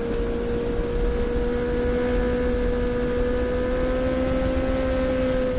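Motorcycle fitted with a Scorpion exhaust running at steady revs, one even engine note that climbs a little and eases off near the end, over low wind rumble on the microphone.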